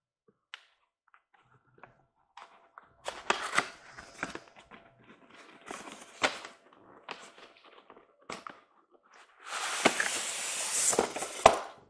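A cardboard box and styrofoam packing being handled while a model train car is unboxed: scattered knocks and rustles, then about two seconds of loud scraping and rustling near the end.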